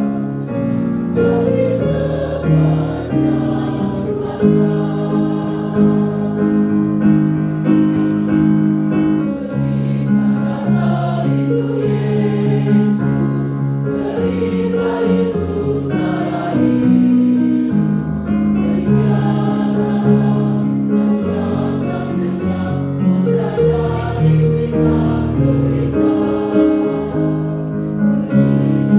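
Mixed church choir of men's and women's voices singing in parts, holding sustained chords that change every second or two.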